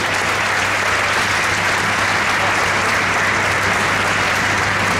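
Audience applauding steadily, with a low steady hum underneath.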